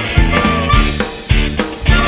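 Live blues band playing a train-rhythm blues: amplified harmonica over drum kit, bass and electric guitar, with hard drum strokes as the loudest hits.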